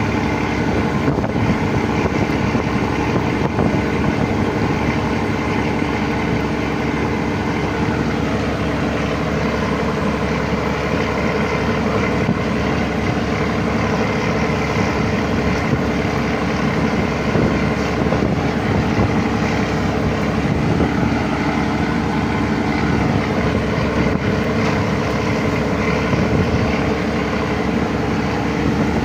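An engine running steadily with a constant hum, under a wash of noise.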